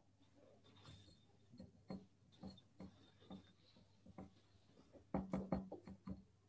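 Faint, irregular clicks and knocks over a video call, followed about five seconds in by a quick run of louder knocks, some eight in about a second.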